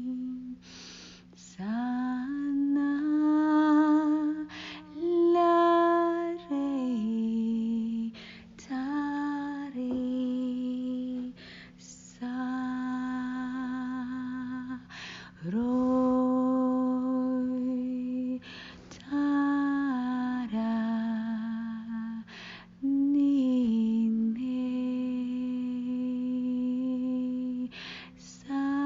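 A woman's solo voice humming and toning long held wordless notes, sliding up into each note and moving in slow steps between pitches, in phrases of a few seconds with short breaths between them. A faint steady low tone runs underneath.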